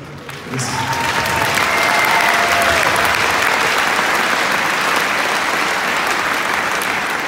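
Large crowd applauding, rising quickly about half a second in and holding steady, with a few faint shouts.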